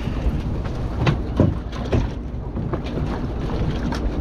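Low steady rumble of wind on the microphone and water around a small boat, with several sharp knocks and clatters, the loudest about a second to two seconds in, as a hooked tailor is netted and brought aboard.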